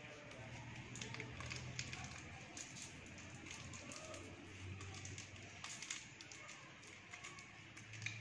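Crinkling and scattered small clicks of a Mentos roll's wrapper being peeled open by hand, with a low steady hum underneath.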